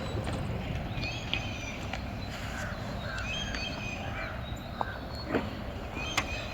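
Small birds chirping and crows cawing now and then, over a low steady rumble.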